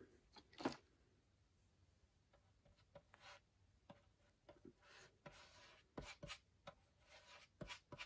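Faint, scattered soft rubbing and small clicks of an epoxy-loaded chip brush and gloved hands working peel ply down over wet fiberglass cloth on a rocket fin; otherwise near silence.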